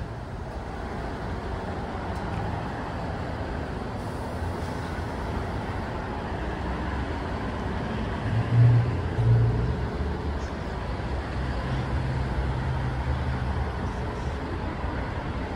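Amtrak train at the platform, a steady low rumble and hum as it starts to roll out slowly, with two short, louder low tones a little past the middle.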